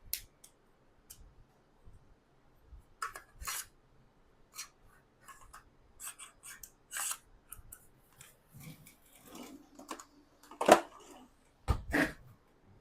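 Small hard parts of a portable oxygen machine being handled while the battery is worked off: scattered clicks and scrapes, with two louder clacks near the end.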